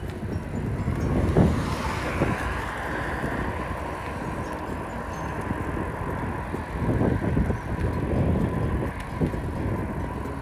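Wind buffeting the microphone with road rumble while riding an e-bike, gusting louder now and then, over a faint steady whine.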